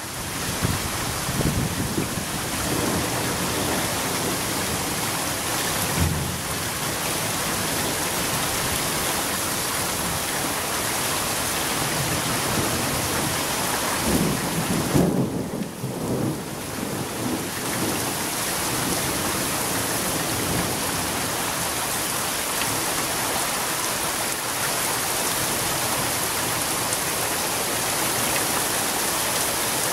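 Heavy rain pouring steadily in a thunderstorm, with brief low rumbles near the start and again about halfway through.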